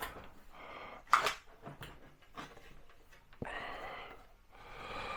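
Flat-pack cabinet panels and cardboard packaging being handled and set down: a sharp knock about a second in, a smaller knock about three and a half seconds in, and soft breathy rustling between them.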